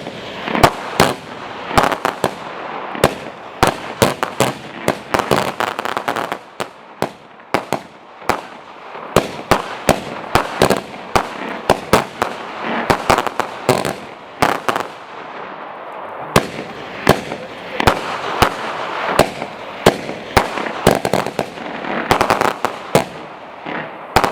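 A 14mm 90-shot roman candle battery cake firing: sharp launch pops, several a second, over a steady hiss of burning tubes.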